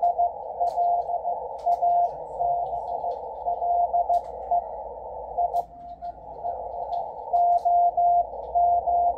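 Morse code from W1AW received on 80 meters by a Yaesu FTdx10 transceiver: a steady-pitched tone keyed in dots and dashes over receiver hiss, narrowed by a 500 Hz filter. The hiss dips briefly about halfway through.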